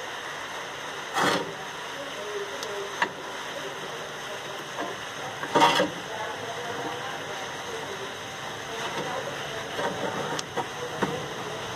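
Light clicks and clatter of washing machine parts being handled while the drain valve is fitted, with two louder short clatters, about a second in and near the middle, over a steady hiss.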